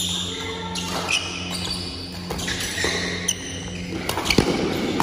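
Badminton rally: sharp racket hits on the shuttlecock, several spaced a second or so apart, with players' footsteps on the court floor.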